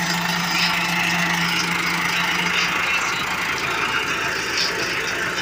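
Massey Ferguson 385 tractor's four-cylinder diesel engine running steadily as the tractor crawls through a muddy ditch.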